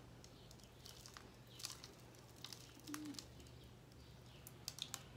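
Quiet handling of potting soil around a succulent in a plastic nursery pot: faint scattered rustles and small clicks, with a cluster of clicks near the end, over a low steady hum.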